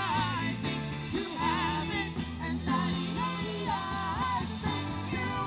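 A band playing with a lead singer: sung melody lines over held bass notes and drum hits.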